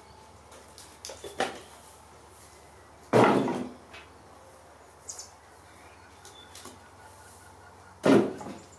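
Cut firewood logs tossed into a wheelbarrow, landing with a loud clunk about three seconds in and again near the end, with a lighter knock after about a second and a half.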